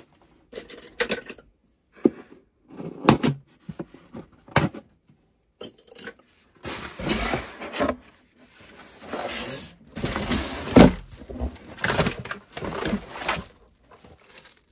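Cardboard box packaging being handled: irregular rustling, scraping and a few knocks as the flaps and inner cardboard pieces are moved, with short quiet gaps between.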